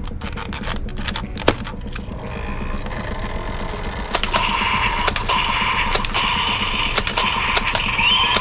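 Toy foam-dart blaster firing semi-automatic, a sharp click with each shot, irregularly about once a second. About halfway in a steady high-pitched hum comes in under the shots.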